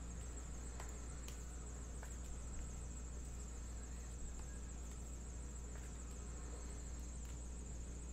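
A steady electrical hum and a faint, steady high-pitched whine, with a few light ticks from baseball cards being handled and stacked on a table.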